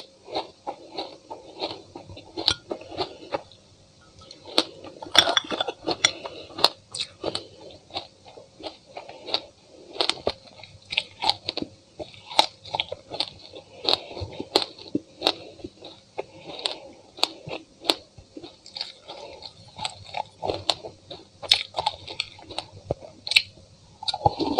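Close-up chewing and crunching of a mouthful of sesame seeds: a dense, uneven run of small crackling clicks, loudest about five seconds in.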